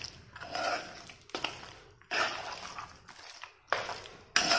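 A hand squishing and mixing raw mutton pieces through a yogurt and spice-paste marinade in a pan: a run of irregular wet squelches.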